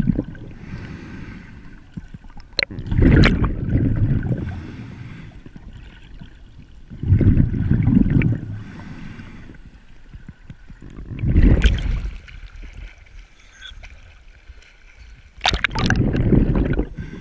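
Muffled water rushing and sloshing against an underwater camera housing as a snorkeler swims, in surges about every four seconds with a quieter gurgle between.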